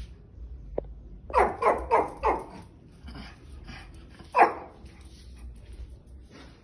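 Guard dog barking: four quick barks in a row about a second in, then a single louder bark a couple of seconds later.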